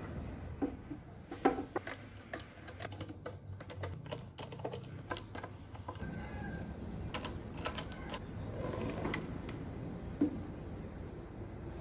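Irregular light clicks and taps, bunched several a second in places, over a low steady hum.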